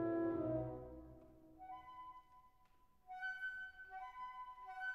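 Instrumental background music. A held low chord fades away in the first second, then a light melody of clear high notes begins about two seconds in.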